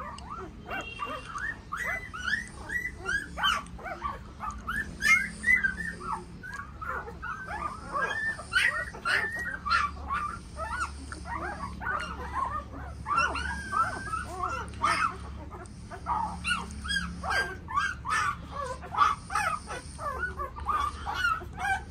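A litter of young Tibetan mastiff puppies whimpering and yelping together. Many short rising-and-falling cries overlap, several a second.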